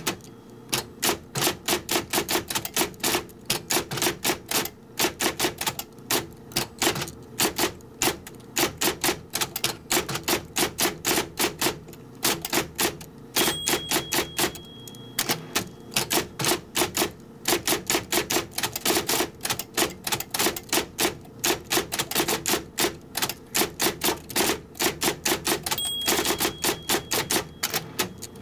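Typing: keys struck one after another at an unhurried pace, about four keystrokes a second, with short pauses now and then.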